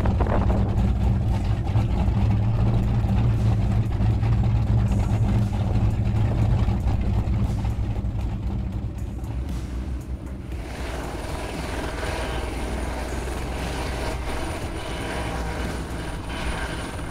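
The Fountain 47's triple Mercury Racing 1350 engines idling with a steady low rumble. About ten seconds in the sound changes to a small helicopter's turbine whine and rotor as it lifts off.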